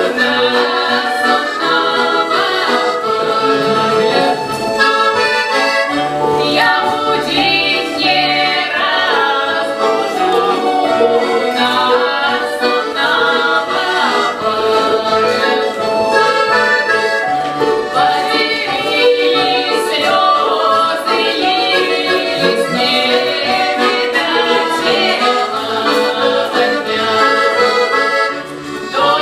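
Russian folk stradania performed to accordion: the accordion plays a lively tune, with voices singing along.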